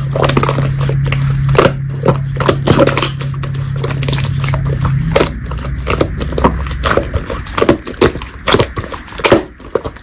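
Close crunching and chewing of food, many sharp irregular crunches and clicks. A steady low hum runs under it and stops about halfway through.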